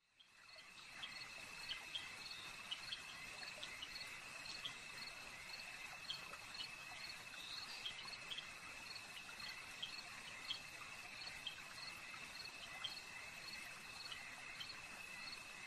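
Faint night insects, crickets by the sound of it, with a steady high trill and short chirps repeating about twice a second over a light hiss. It begins about a second in.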